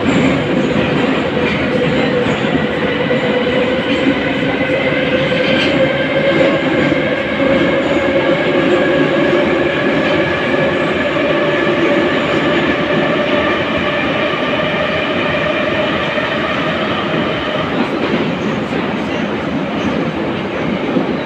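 Inside an 81-541.2 metro car running through a tunnel: a steady loud rumble of wheels on rails, overlaid by a whine of several tones from the traction drive. The whine rises slightly in pitch over the first few seconds and then holds level.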